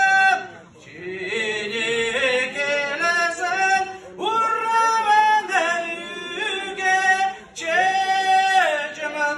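A man singing a Kalmyk song unaccompanied into a microphone, amplified over a PA, in long held phrases. He breaks off briefly about half a second in, again near four seconds and again near seven and a half.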